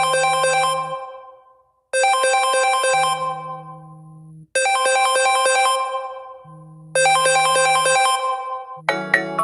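Samsung Galaxy S25 Ultra ringtone: a short, bright chime phrase over a low note, repeating about every two and a half seconds. Near the end a different, faster-moving ringtone starts.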